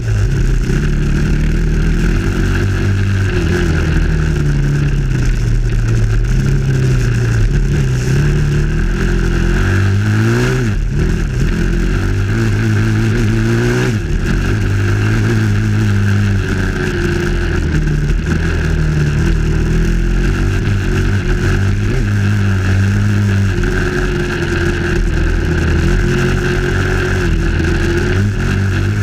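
Dirt bike engine running under way on a trail ride, its pitch rising and falling with the throttle. There is a quick rev and drop about a third of the way in.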